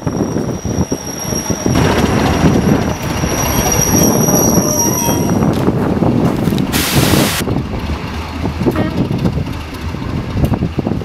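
Heritage diesel multiple unit running along the line, heard from a carriage window, its wheels squealing steadily on the rails. The squeal fades after about five seconds, and about seven seconds in there is a short loud hiss, followed by quieter noise.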